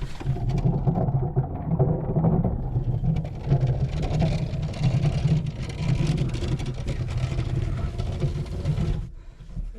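Small wheeled mine cart rolling along the mine level with a person lying in it after being pushed, giving a steady, pulsing rumble. The rumble cuts off about nine seconds in as the cart comes to a stop on its own.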